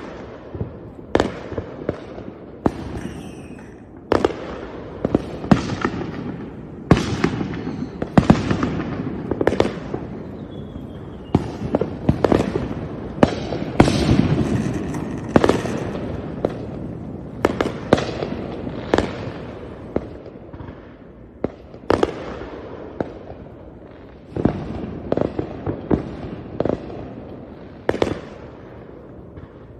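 Fireworks display: a rapid series of loud bangs, one or two a second, over a continuous rumble of crackling and distant bursts, with an occasional faint whistle.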